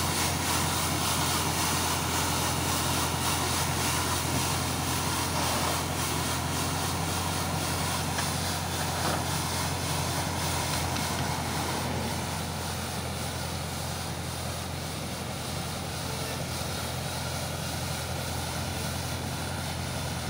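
Mahindra 575 tractor's diesel engine running steadily at low speed, driving a tractor-mounted hydraulic rotary road-sweeper brush that scrubs the asphalt with a steady hiss. The sound eases a little about twelve seconds in as the tractor moves away.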